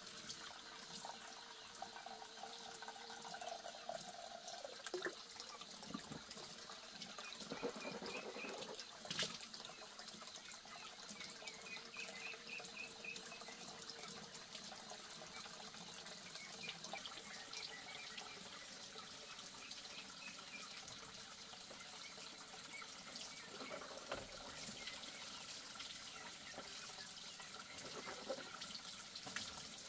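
Water running steadily from a pipe into a large plastic basin, a continuous splashing trickle.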